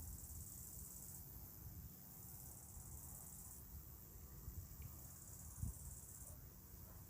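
Faint insect trilling: three high-pitched trills of a second or so each, about a second apart, over a low rumble, with a brief low thump about five and a half seconds in.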